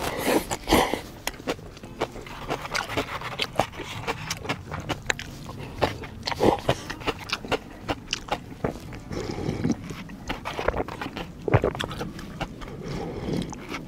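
A person eating yukgaejang cup ramen, slurping and chewing noodles, with many short wet clicks and smacks.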